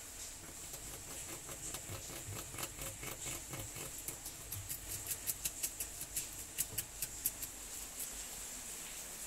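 Bamboo rat gnawing and crunching a piece of plant: a run of sharp bites, about four a second, loudest in the second half and fading near the end.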